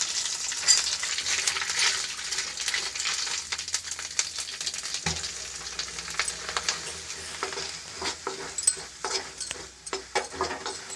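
Ghee and browned ginger-garlic paste sizzling in a kadhai as gram flour goes in, the sizzle dying down over the first several seconds. A spoon scrapes and taps against the pan, mostly in the second half.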